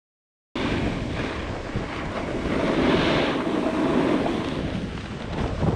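Wind rushing over an action camera's microphone as a snowboard rides down a piste, with the board scraping and sliding over the snow. The noise cuts in suddenly about half a second in and then runs on with a slowly rising and falling level.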